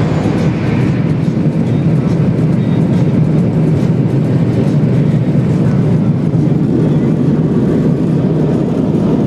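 Car running, heard from inside the cabin: a steady low rumble of engine and road noise.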